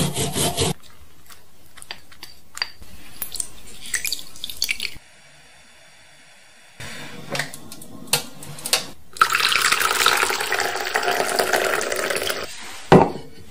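Ginger rasped on a ceramic grater for a moment, followed by a few light clicks and taps. Then hot milk is poured from a height into a ceramic bowl, a steady splashing hiss for about three seconds, and one sharp knock near the end.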